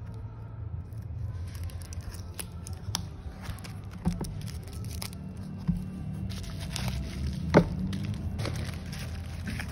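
Cardboard box and bubble-wrap packaging of a phone replacement screen being handled: rustling and crinkling with scattered sharp taps and clicks, the loudest about three-quarters of the way through, over a steady low hum.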